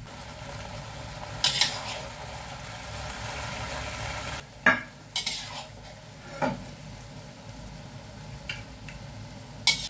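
Metal spatula stirring and scraping a stainless steel wok of winter melon and fish in a thickened sauce, over a steady sizzle. Several sharp clanks of the spatula against the wok are heard, and the sizzle drops away about halfway through.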